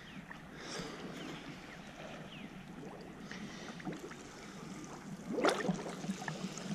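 Shallow reservoir water sloshing and splashing as people wade and work in it, with one louder splash about five and a half seconds in.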